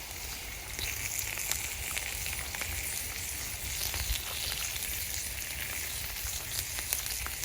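Burger patties frying in oil in a pan over very hot campfire coals: a steady sizzle with scattered small pops and crackles.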